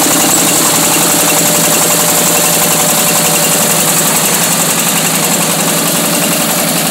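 Single-cylinder diesel engine of a mobile rice mill running steadily, driving the rice huller.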